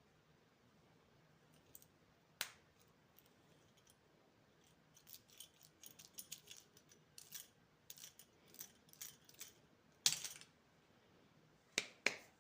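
Candy packaging being handled and unwrapped, giving faint scattered clicks and crinkles. A run of quick small crackles comes from about five to nine seconds in, and sharper clicks come about two and a half, ten and twelve seconds in.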